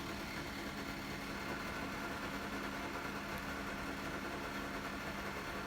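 A steady low background hum with faint steady tones and no distinct events.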